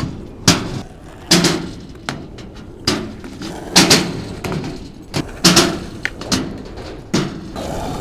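Skateboard rolling on rough asphalt, a steady wheel rumble broken by sharp clacks and knocks about once a second.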